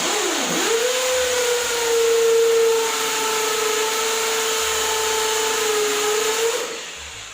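Corded rotary hammer (JCB Plus JKD 3200 SDS hammer drill) running in hammer-drill mode. It is drilling into hard stone. It starts suddenly, dips and recovers in pitch as it takes the load, runs steadily for about six and a half seconds, then winds down.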